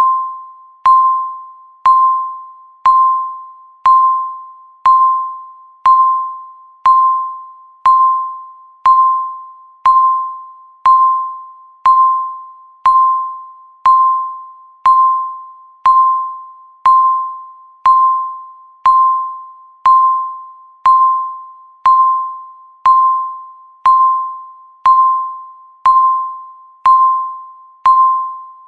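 Countdown timer beeping once a second: a single electronic beep at one steady pitch, sharp at the start and fading away before the next one.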